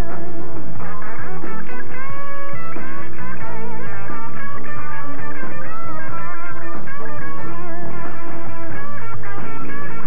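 Background rock music with a lead electric guitar.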